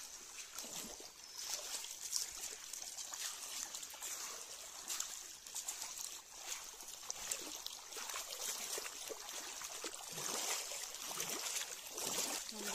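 Shallow stream water trickling and splashing, with irregular sloshes through it.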